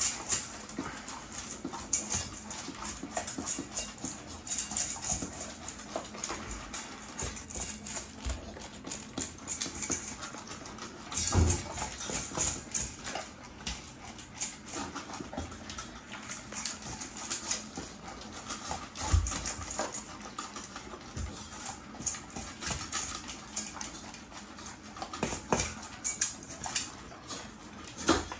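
A German shepherd and a yellow Labrador eating dry kibble from stainless steel bowls: a continuous irregular crunching and clicking of chewed kibble and teeth against metal, with a few louder knocks of a bowl on the wooden floor.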